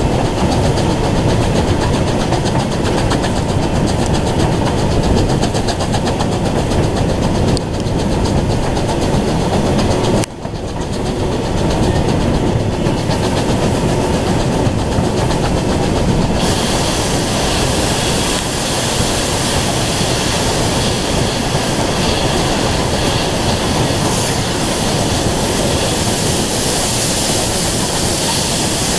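Steam-hauled heritage passenger train running along the line, heard from aboard: a steady rolling and rumbling noise. There is a brief dip about ten seconds in, and more hiss from about sixteen seconds on.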